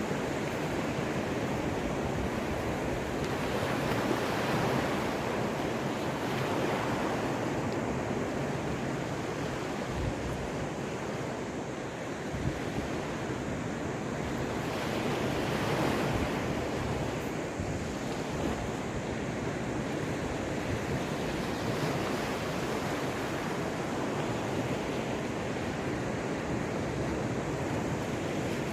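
Waves of the Caspian Sea washing onto the shore: a continuous surf noise that swells gently every several seconds.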